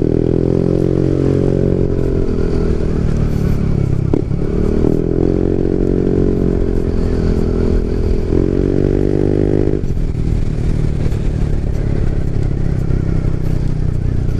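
Yamaha NMAX 155 scooter's single-cylinder engine running under way, its note rising and falling as it rides, with a brief dip and a click about four seconds in. Near the ten-second mark the engine note drops away suddenly, leaving only a low rumble as the scooter rolls on.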